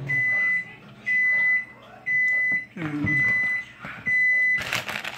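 An electronic beeper sounds five even, high beeps, one a second, each about half a second long. A plastic bag crinkles near the end.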